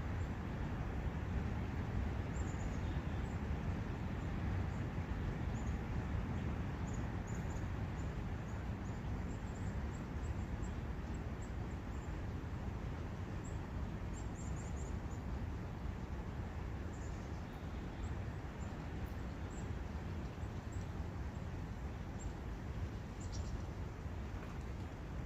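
Steady rushing of wind and a forest brook, with faint, short, high bird chirps scattered through it.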